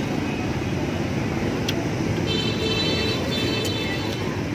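Steady rumble of street traffic, with a brief high tone in two parts about halfway through.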